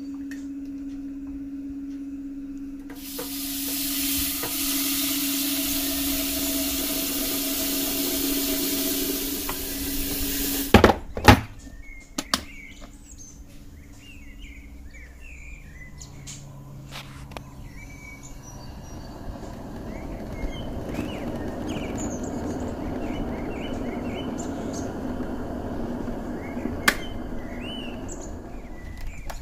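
Tap water running into a red plastic electric kettle at a stainless-steel sink for several seconds, then a few sharp knocks about eleven seconds in as the water stops and the kettle is handled and set down. The kettle then heats on its base with a low rushing that slowly builds, while birds chirp in the background.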